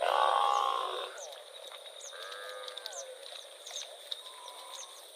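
A cow mooing three times: a loud call at the start, another about two seconds in, and a fainter one near the end.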